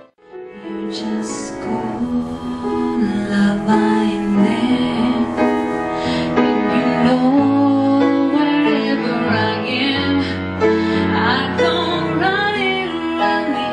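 A woman singing with piano accompaniment, performed live. The sound drops out for an instant at the very start, then the song carries on.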